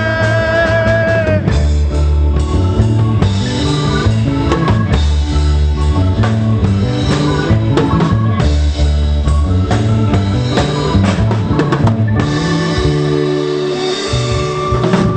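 Live pop band playing an instrumental passage with drum kit, bass and guitar, after a held sung note ends about a second in.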